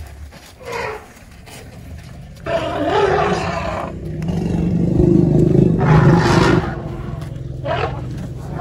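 African elephants roaring several times, loudest between about five and six and a half seconds in, over a low steady hum.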